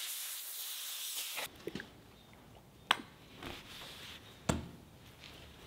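A compressed-air blow gun hissing steadily, which cuts off suddenly about a second and a half in. Then faint rag rubbing on wood, with two sharp ticks.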